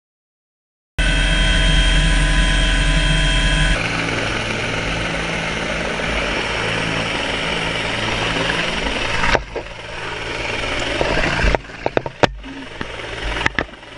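Helicopter hovering close overhead: rotor and engine noise with heavy downwash wind on the microphone. It starts suddenly about a second in with a steady high whine over a low rumble, then turns into an even rushing noise, broken by a few sudden dips and crackles near the end.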